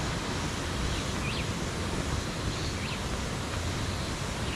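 Steady rushing outdoor background noise with wind rumbling on the microphone, and a few faint, short, high chirps about every second and a half.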